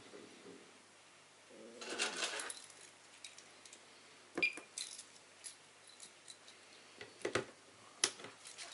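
Handling clatter and clicks on a homemade airsoft bomb prop: a rustling clatter about two seconds in, a sharp click with a very short high beep about halfway, then a few separate clicks near the end as the unit is switched off and its display goes dark.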